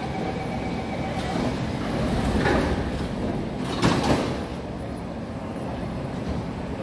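Sliding doors of a C151 train and the platform screen doors closing, shutting with a thump about four seconds in, over steady station noise.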